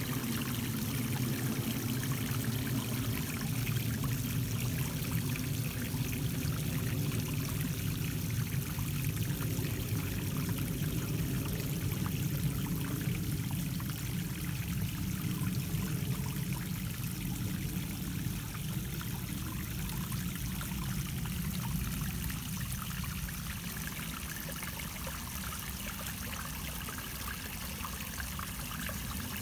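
Small backyard rock waterfall splashing and trickling steadily into a garden pond, growing a little fainter toward the end.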